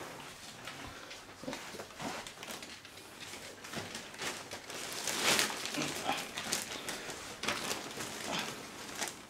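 Miniature Pinscher puppies playing, with scuffling and scratching on a rug and brief puppy noises; a louder scuffle comes about five seconds in.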